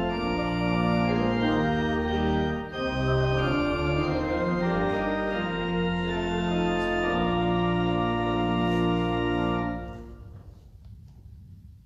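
Church organ playing sustained chords. It stops about ten seconds in, and its sound dies away in the sanctuary's echo.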